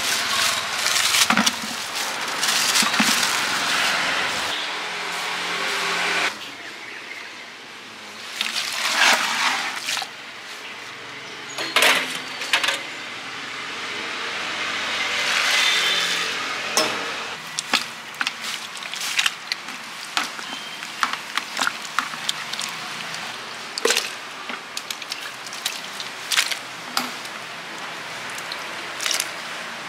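Plastic bag crinkling as it is handled for the first few seconds, then scattered clinks and knocks of utensils and dishes in a street food stall.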